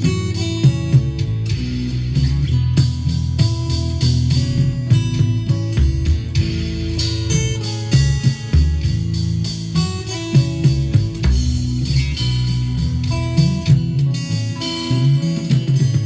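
Epiphone acoustic guitar with a capo, played solo: a continuous run of picked notes over a ringing bass line.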